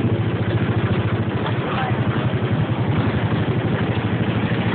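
Go-kart's small engine running steadily while driving, with a fast, even putter.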